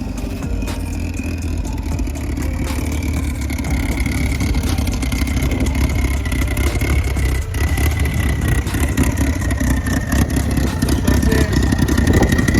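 Dodge SRT-4's turbocharged 2.4-litre four-cylinder engine running, growing gradually louder, with a thin high whine that drifts slightly lower in pitch.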